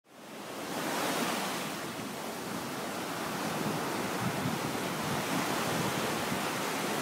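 Steady rush of sea surf breaking on a sandy beach, with wind on the microphone; it builds up over the first second and then holds.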